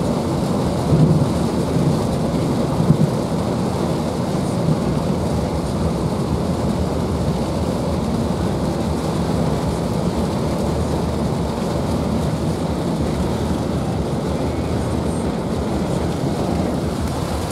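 Heavy supercell thunderstorm rain making a steady low roar, with a few brief louder bumps in the first few seconds.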